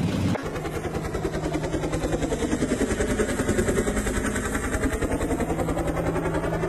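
Chinook tandem-rotor helicopter flying overhead, its rotors making a rapid, even chop with a steady engine hum. It starts about half a second in.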